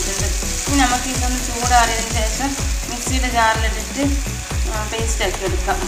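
Sliced onions sizzling as they fry in a nonstick pan, mixed with background music that has a steady beat about four times a second and a melody line.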